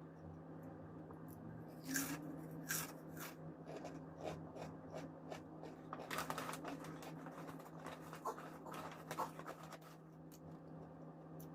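Crisp snack chips bitten and chewed close to the microphone: a run of sharp, irregular crunches, loudest about two seconds in and again around six seconds in, over a low steady hum.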